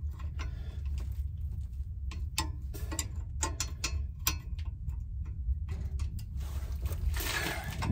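Ratcheting wrench clicking in quick, irregular runs as it turns a rear brake caliper bolt, over a steady low rumble.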